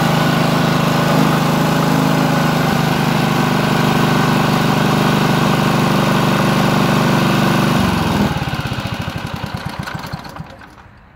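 Honda HR215 lawn mower's engine running steadily, then shut off about eight seconds in: the firing stops and the engine winds down in slowing pulses over about two seconds to a stop.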